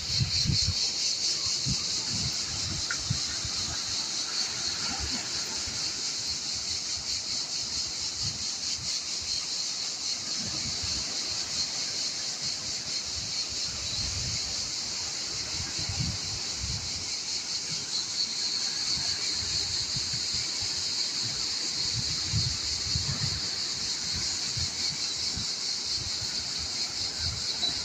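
Steady, high-pitched chorus of insects shrilling without a break, with irregular low rumbles underneath.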